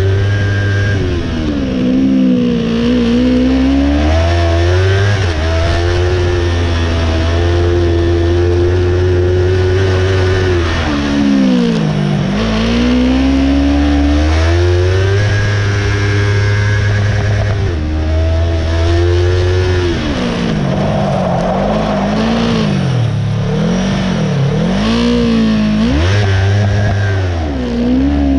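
Onboard engine sound of an open-wheel formula-style race car driving a cone slalom: the revs rise and fall over and over with throttle and lifts, the swings coming quicker in the last third, over a steady low rumble.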